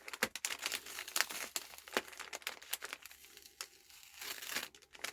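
Packaging crinkling as a sealed pack is worked open, its sticker seal being peeled carefully rather than ripped. It comes as an irregular string of small crackles, sparser around the middle.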